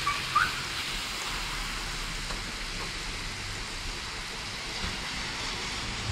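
Steady rain hissing down onto wet pavement, grass and puddles during a summer thunderstorm downpour. A bird chirps twice right at the start, the second call rising.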